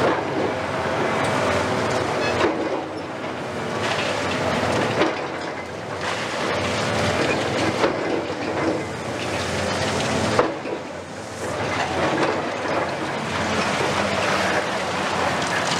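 Hydraulic demolition excavators tearing down a brick building: continuous crunching and clattering of masonry and debris falling, with four louder crashes about every two and a half seconds. A steady squeal sounds in the first two seconds or so.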